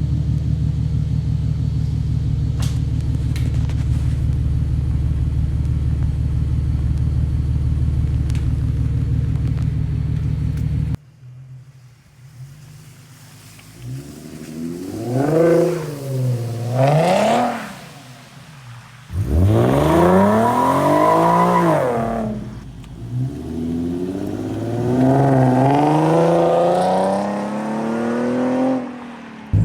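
Infiniti Q50's V6 engine through an aftermarket cat-back exhaust: a steady exhaust drone at constant speed for about eleven seconds, then after a sudden cut, a series of free revs, each rising and falling in pitch, the biggest about twenty seconds in.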